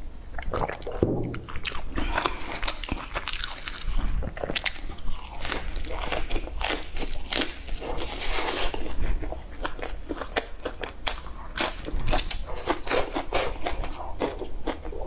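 A person biting into and chewing fried sausage wrapped in a lettuce leaf, picked up close by a clip-on microphone: a continuous run of crisp crunching clicks.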